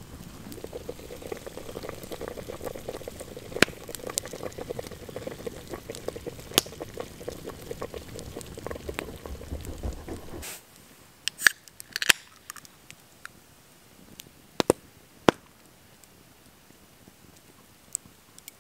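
Water and porcupine meat boiling hard in a can cooker pot over a campfire: a dense, steady bubbling for about ten seconds that stops abruptly. After it, a quieter stretch with a few sharp clicks and pops.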